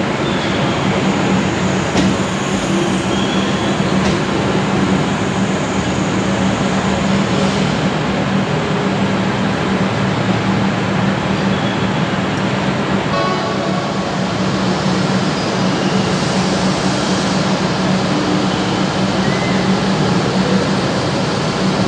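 Suburban electric train moving along the platform close by: a steady rumble of wheels and running gear over a constant low hum. A brief tone sounds about halfway through.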